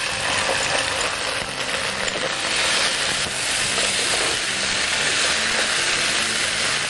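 Mushroom, sweet-corn, onion and capsicum filling sizzling in olive oil in a pan, with tomato purée added: a steady frying hiss, a little stronger around the middle.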